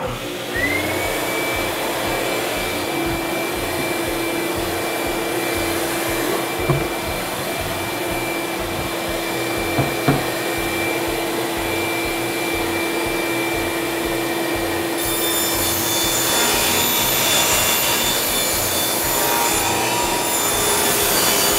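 Power saw and shop vacuum switched on together through an automatic vacuum switch: motors spin up with a short rising whine, then run steadily. About fifteen seconds in the sound grows harsher and slightly louder as the blade cuts the sanded plywood.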